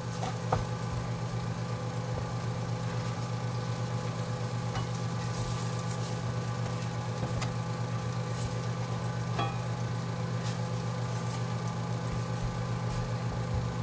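Potatoes sizzling as they fry in a cast iron pan and are stirred with a spatula, with a few light clicks of the utensil against the pan, over a steady low hum.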